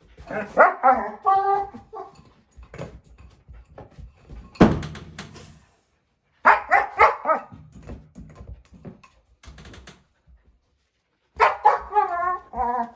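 German shepherd puppy making drawn-out barks and whines that waver in pitch, in three bouts with pauses between. A single loud knock comes about four and a half seconds in.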